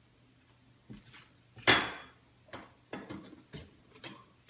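Gas cooktop burner caps and rings being lifted off and set down, clattering: a loud knock just under two seconds in, then several lighter clinks.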